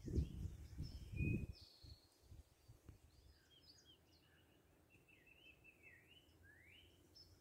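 Songbirds singing and calling in a morning chorus: many short whistled notes, chirps and rising and falling slurs. Low muffled rumbling in the first second and a half, then only the birds.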